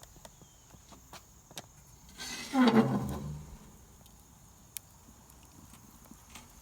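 Smoker lid hinge creaking as the lid is swung open, one drawn-out creak falling in pitch over about a second, a little over two seconds in, among a few light clicks and knocks.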